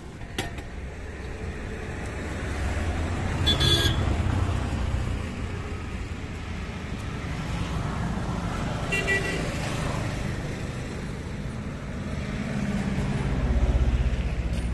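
Road traffic passing close by, a low engine rumble that swells and fades twice, with a vehicle horn tooting briefly about three and a half seconds in and again around nine seconds in.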